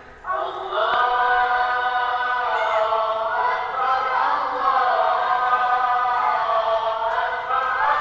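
A group of voices chanting or singing together in long, slowly shifting held notes.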